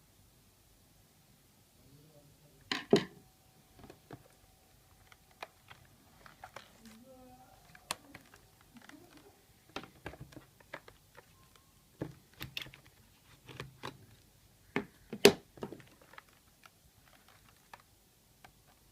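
Scattered clicks, taps and knocks of a laptop being handled on a hard surface, with two louder knocks about 3 and 15 seconds in.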